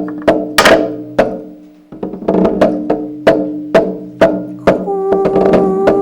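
Performance music: sharp wood-block-like knocks, about two a second, over held, ringing tones. It fades away about a second and a half in and resumes half a second later, and a new steady tone comes in near the end.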